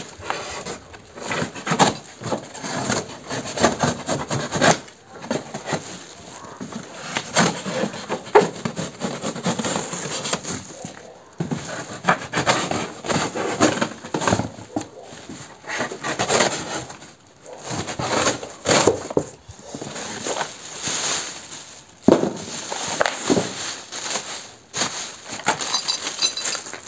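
Plastic film wrapping rustling and crinkling, with cardboard box flaps being pulled about, as a boxed small petrol engine is unwrapped by hand. The handling noise comes in irregular bursts with a few sharp knocks.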